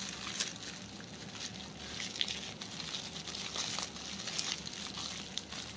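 Soft rustling and crinkling of packaging, with scattered small clicks, as a bracelet is unwrapped and handled.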